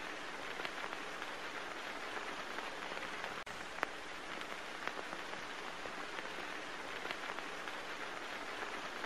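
Steady hiss of light rain, with a few faint drip-like ticks scattered through it.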